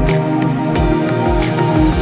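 Background music: sustained synth chords over a steady kick-drum beat.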